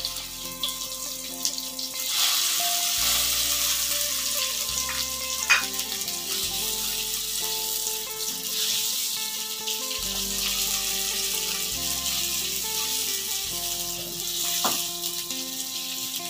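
Chopped aromatics sizzling in hot oil in a steel wok while being stirred with a silicone spatula, the sizzle growing louder about two seconds in. Two sharp clicks, near the middle and near the end, come from the spatula knocking the wok.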